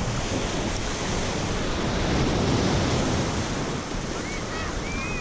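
Shore-break surf washing up the sand, swelling about halfway through, with wind buffeting the microphone. A few short bird calls come near the end.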